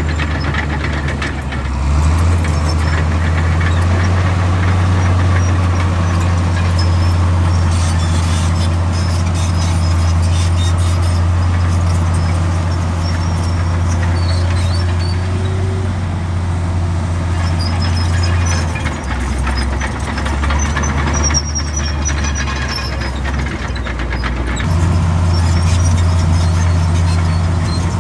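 Komatsu D65 bulldozer's diesel engine running hard, its note dropping and picking up again a few times as the load changes. Short high-pitched squeaks come through now and then.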